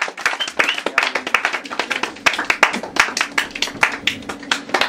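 A small audience clapping, the separate claps distinct and irregular.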